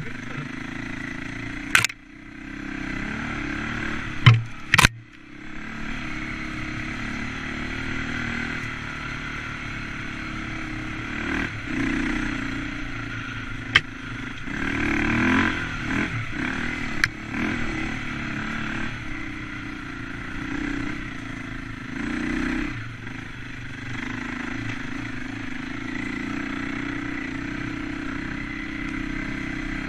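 Off-road dirt bike engine running under the rider, revving up and easing off in repeated bursts as it climbs the trail, with three sharp knocks in the first five seconds.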